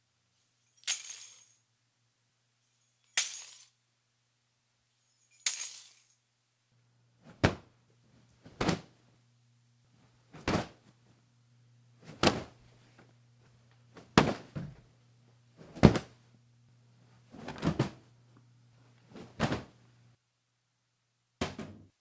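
Household junk dropped onto a tiled floor to record crash sound effects: three bright jangling clatters in the first six seconds, then about nine duller thuds, one every couple of seconds, with a low steady hum underneath most of them.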